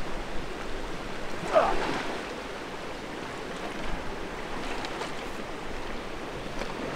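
River water splashing and lapping around a large white sturgeon held at the surface beside a wading man, with one brief louder burst about a second and a half in.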